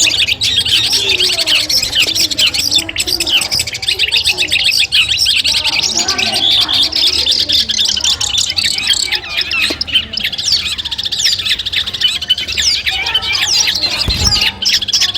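Long-tailed shrike (cendet) singing a fast, unbroken, chattering song of rapid high notes and trills, with a short low thump near the end.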